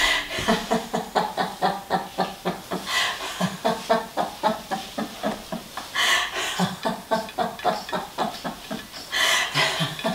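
Laughter-yoga laughing: continuous rapid 'ha-ha-ha' pulses, about five a second, breaking into higher peals about every three seconds.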